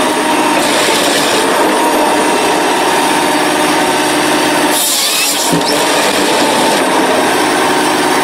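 Forestry harvester running steadily as its head feeds a felled log through the feed rollers and delimbing knives, with a brief high-pitched saw cut through the log about five seconds in.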